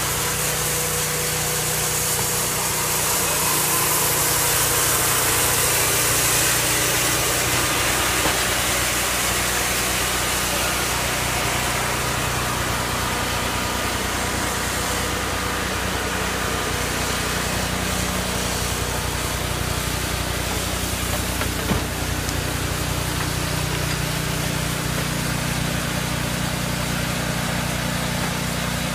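Engine-driven sawmill running steadily, its engine drone under the noise of the saw working a log. A single short knock comes about three-quarters of the way through.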